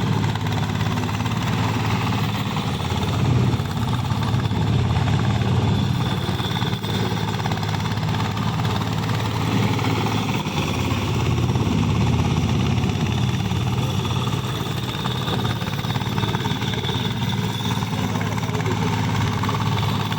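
A ploughing machine's engine running steadily at an even pitch.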